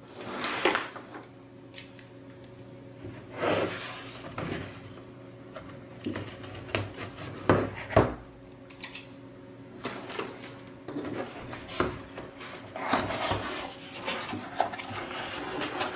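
Corrugated cardboard mailer box being handled and opened: cardboard rubbing and scraping as the lid and inner tray are worked, with a couple of sharp knocks about halfway through. A faint steady hum runs underneath.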